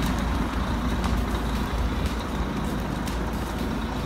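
Large tour-coach diesel engine idling: a steady low rumble.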